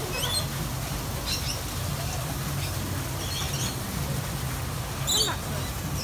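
Rainbow lorikeets giving a handful of short, high chirps spread a second or so apart, over steady low background noise.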